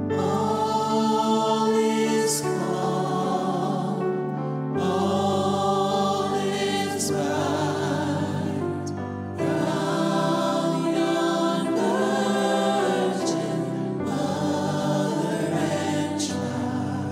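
A choir singing a slow song with long held notes, in phrases of about four to five seconds with short breaks between them.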